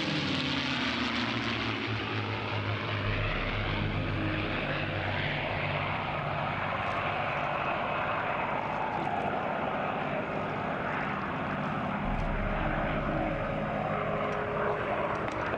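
Piston-engined P-51 Mustang fighters flying past, their V-12 engines and propellers droning steadily with slow shifts in pitch as they pass.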